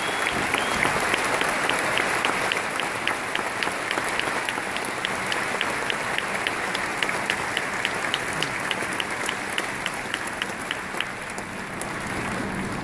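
Large arena audience applauding, slowly dying down, with a regular sharp tick about three times a second running through it until near the end.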